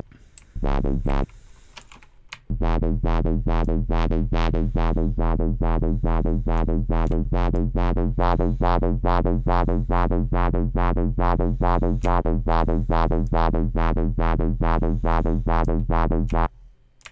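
Square-wave wobble bass from the Serum software synth: two short low notes, then one held low note whose tone pulses about four times a second under LFO modulation of its distortion and high-peak EQ, which makes a second wobble. The held note stops briefly near the end.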